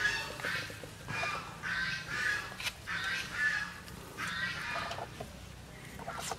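Young puppy crying: a string of short, high-pitched whines and squeals, one after another, while it is being rubbed dry with a cloth.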